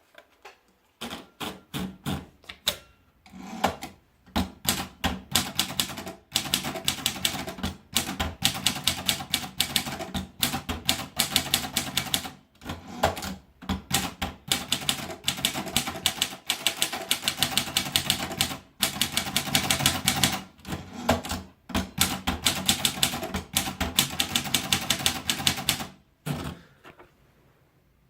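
Princess typewriter being typed on: fast runs of key strikes in bursts, broken by short pauses, stopping about a second before the end.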